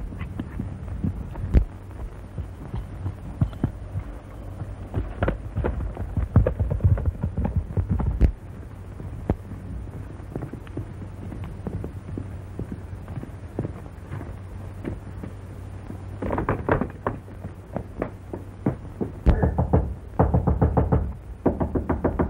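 Hoofbeats of a galloping horse over the steady low hum of an old film soundtrack. Near the end comes a fast run of knocks.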